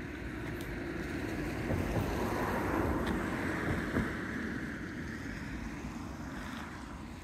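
A vehicle passing by: a swell of road noise that builds over the first couple of seconds, peaks in the middle and fades away.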